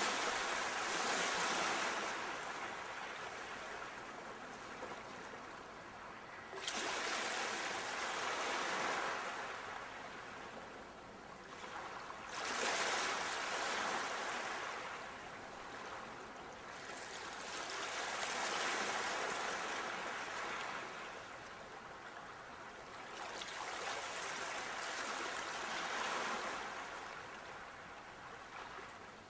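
Ocean waves breaking on a shore, about one every six seconds, five in all: each comes in suddenly as a rush of surf and then washes back and fades.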